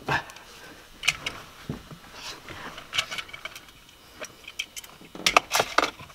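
Scattered light plastic clicks and taps as a gauge is pressed and seated into a plastic A-pillar gauge pod, with a quick run of clicks near the end.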